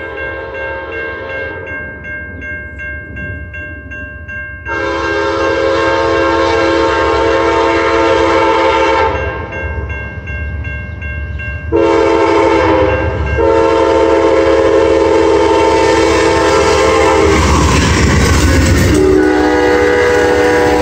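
A railroad crossing bell dings steadily while an approaching Amtrak locomotive sounds its chime horn: one long blast, then a pause, then a short and a long blast. From about 17 seconds in, the train's rumble and wheel clatter swell as it reaches the crossing. The horn's last blast comes lower in pitch as the locomotive goes past.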